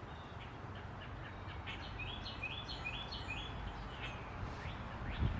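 A songbird outdoors repeating a short, high chirp several times in quick succession, over low, steady background noise.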